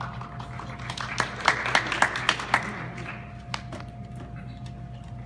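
Applause from a small audience, a scatter of hand claps that builds about a second in and dies away by about three seconds.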